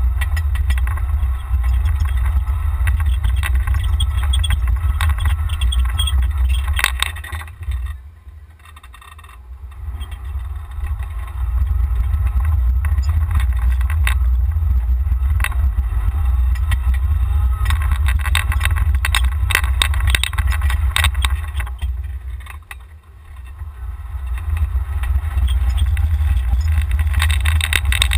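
Golf cart driving, heard from a camera mounted on the cart: a loud low rumble of wind and vibration with scattered rattles and knocks. It dies down twice, about eight seconds in and again near twenty-two seconds, as the cart slows, then picks up again.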